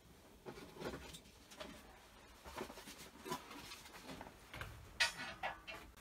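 Chickens making soft, scattered clucks amid rustling, in short irregular bursts; the loudest comes about five seconds in.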